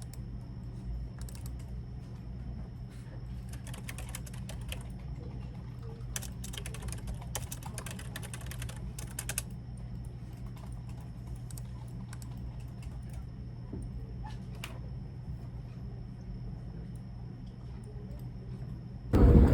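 Typing on a computer keyboard in bursts of quick key clicks, busiest in the middle, then thinning to scattered keystrokes, over a steady low hum.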